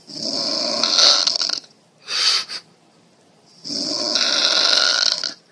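A person snoring, ear-splitting: two long snores of about a second and a half each, one at the start and one near the end, with a shorter breath between them.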